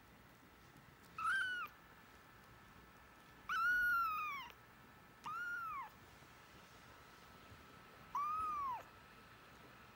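A kitten mewing four times: high, thin mews that rise and then fall in pitch, the second one the longest at about a second.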